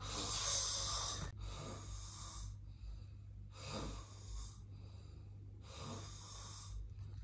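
A dog snoring in its sleep: four long, hissing snores about two seconds apart, over a steady low hum.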